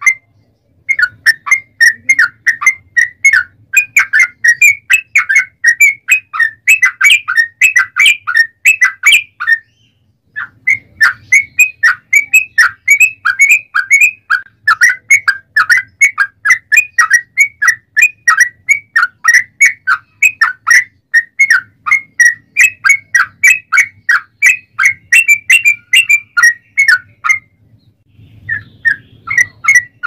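Yellow-vented bulbul singing a long, fast rolling run of short whistled chattering notes. The song breaks off briefly about ten seconds in and again near the end.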